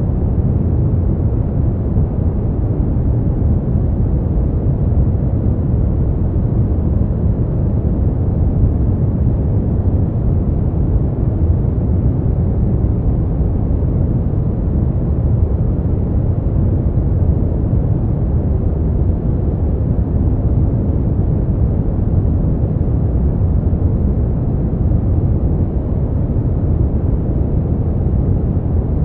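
Steady, smoothed brown noise: an even, deep rumbling hiss with most of its weight in the low end, unchanging throughout.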